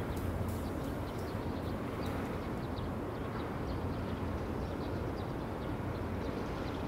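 Steady outdoor ambience: an even low rumble and hiss, with faint short high chirps now and then.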